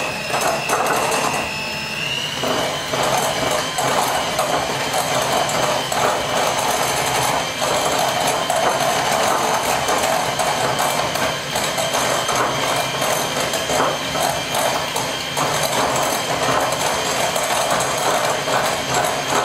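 Electric hand mixer running steadily, its beaters churning thick cake batter of creamed butter, sugar and eggs in a glass bowl; the motor's whine rises slightly in pitch about two seconds in.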